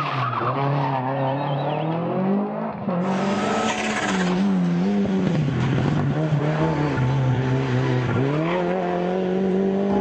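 Rally car engines revving hard, the note rising and dropping again and again through gear changes and throttle lifts, with tyre noise under it. Near the end the engine note climbs steadily as a car accelerates.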